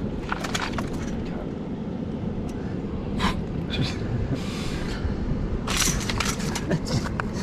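Cobblestones clicking and scraping in scattered bursts as the fish and hands shift on them, over a steady low rumble.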